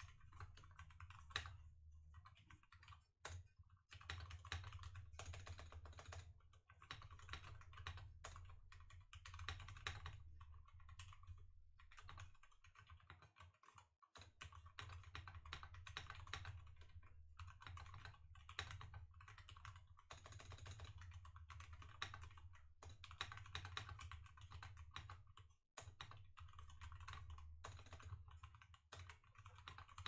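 Computer keyboard typed on in quick bursts with short pauses, heard through a Razer Seiren Mini mic on a boom arm, with a low rumble under each burst. The typing is a test of whether the mic's built-in shock mount keeps keyboard vibration out.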